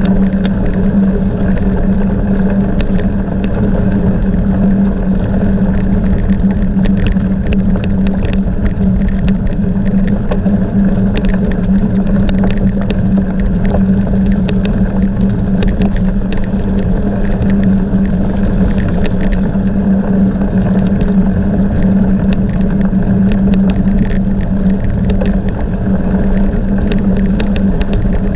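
Gravel bicycle ridden at speed: a steady loud rumble of tyres and wind with a constant hum, broken by frequent short clicks and rattles.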